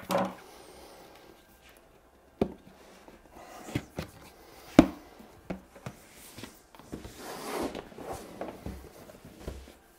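Cardboard packaging being handled: a snug box lid worked loose and a printed card insert slid out, with rubbing and scraping of cardboard and several sharp knocks and taps, the loudest a little before halfway.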